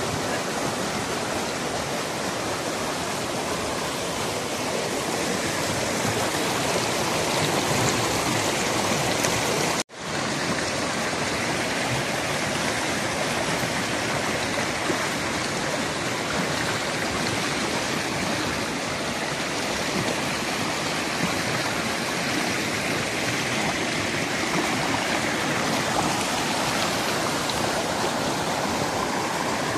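Fast, shallow stream rushing over rocks: a steady rush of water. It breaks off for an instant about ten seconds in.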